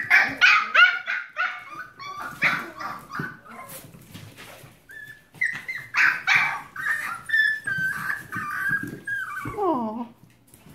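A litter of Keeshond puppies yipping, barking and whining in high voices, several at once. Near the end one long whine slides down in pitch.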